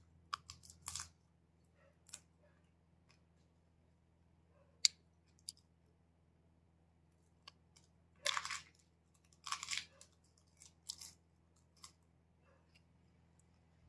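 Someone eating fuchka (pani puri) fast: scattered crisp crunches and chewing sounds, with the two longest crunches about eight and nine and a half seconds in.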